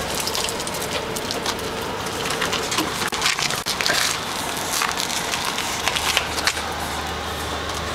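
Gritty crunching and crackling of a solar car's tyres rolling slowly over rough ground as it is pushed by hand, its wheels turning freely now that the brake disc no longer drags.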